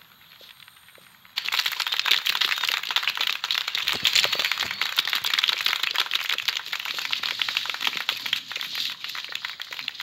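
Film sound effect of dense, continuous crackling, made of many tiny crackles, that starts suddenly about a second and a half in after a quiet opening.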